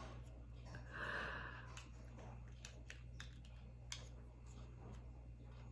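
Faint scattered light clicks and a brief rustle about a second in, from a small product box and its packaging being handled and opened, over a low steady hum.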